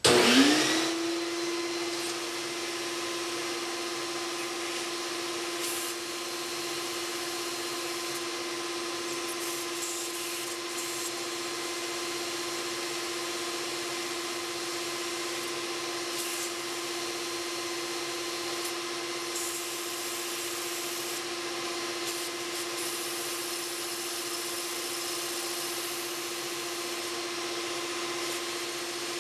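A vacuum motor spins up with a quickly rising whine, then hums steadily with a rush of air through a hose feeding a homemade wooden inline four-cylinder air engine, which runs on that air.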